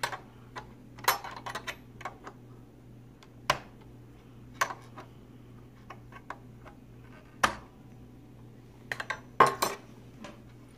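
Irregular clicks and clacks of small hard plastic parts being handled: the Crayola Crayon Carver's letter templates being moved and set in place. There are a dozen or so separate clicks, the loudest cluster near the end.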